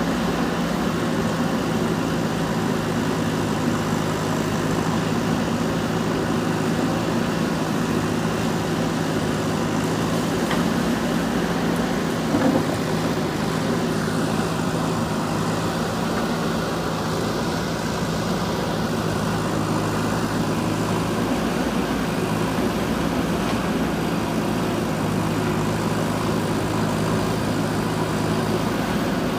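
JCB 3DX backhoe loader's diesel engine running steadily as the machine works soil, with one short knock about twelve seconds in.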